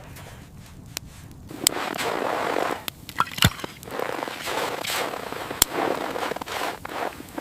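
Wood fire crackling, with sharp scattered pops over a hissing rush that swells through the middle.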